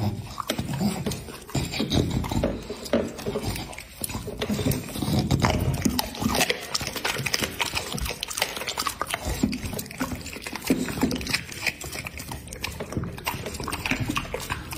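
A bully-breed dog chewing raw chicken taken from a hand, with irregular wet smacking and chomping that goes on throughout.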